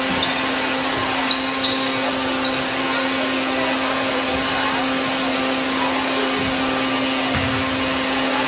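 A steady, unbroken hum over a constant hiss, with no change in pitch or level.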